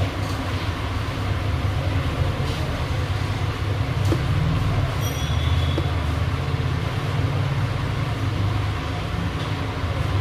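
Steady low rumbling hum of a motor or blower. A faint short high tone sounds about five seconds in.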